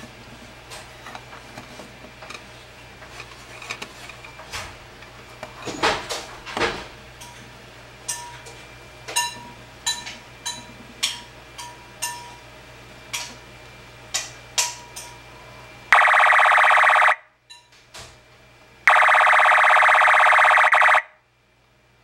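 New Star Corporation Bichorn (1989) electronic sound-effects horn: a series of clicks and short beeps, then two loud buzzing alarm-like tones near the end, the first about a second long and the second about two seconds long.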